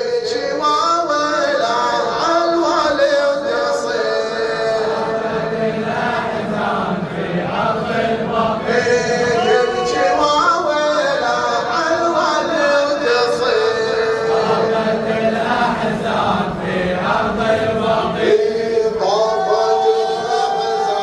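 Bahraini hawsa mourning chant: many men's voices chanting a religious lament together, unaccompanied, holding long sustained notes.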